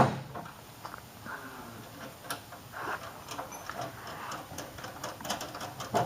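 Scattered light clicks and taps of car parts and fasteners being handled and fitted by hand, irregular and fairly quiet.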